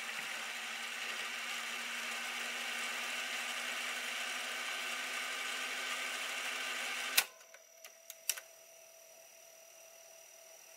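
Clarion car radio-cassette player's tape mechanism whirring steadily with a low hum, as in a fast wind. About seven seconds in it stops with a sharp click, and a few lighter mechanism clicks follow.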